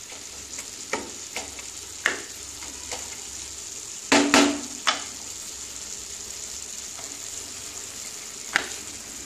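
A wooden spatula stirs sprouted moong and sliced vegetables in a nonstick kadai, with a steady sizzle from the pan. Short scrapes and knocks of the spatula against the pan come every second or two. The loudest is a scrape a little after four seconds in.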